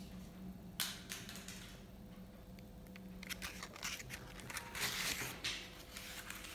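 A few light clicks and scratchy rustles of a small toy ball skittering across a hard wooden floor as a cat goes for it, with a sharp click about a second in and a cluster of them later on.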